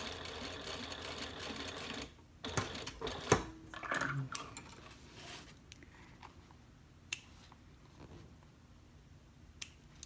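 Juki sewing machine running steadily as it stitches back over a seam line, stopping about two seconds in. Then knocks and clicks as the work is handled, the loudest about three seconds in, and a few sharp snips of scissors trimming the threads.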